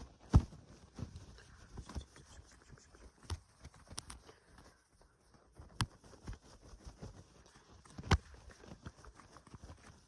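Fast, irregular tapping and clicking close to the microphone, as ASMR trigger sounds, with a few sharper, louder taps among quieter scratchy ones.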